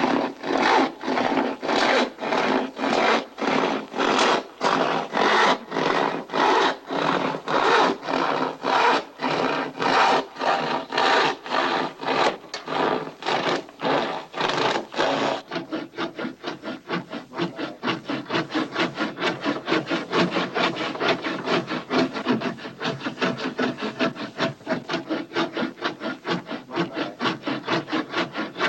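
A long handsaw cutting through a tree limb with steady back-and-forth strokes, about two a second. About halfway through, the strokes turn quicker and lighter.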